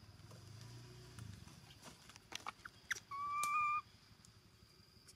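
A baby macaque gives one short, steady, whistle-like coo about three seconds in, with a few faint clicks shortly before it.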